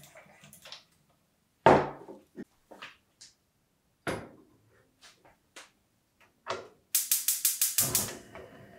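A stainless steel gooseneck kettle is set down on a gas hob's cast-iron grate with a thunk, followed by a few lighter knocks. Then the hob's igniter clicks rapidly, about nine clicks a second for roughly a second, and the burner catches with a faint steady hiss.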